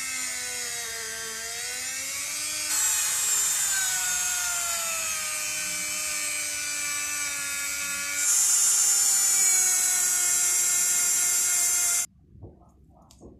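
Small high-speed rotary tool spinning a polishing wheel against the steel inside an axe head's eye: a steady high whine whose pitches drift as the wheel is pressed and eased. It steps louder about a third of the way in and again past halfway, then stops abruptly near the end.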